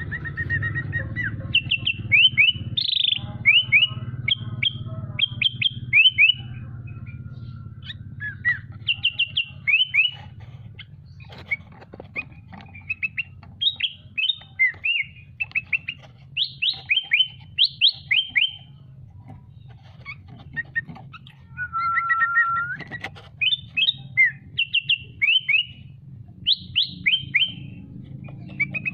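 A songbird singing: rapid strings of short, falling chirps, mostly in quick groups of two to four, repeated throughout, with one longer level whistled note past the middle. A steady low hum runs underneath.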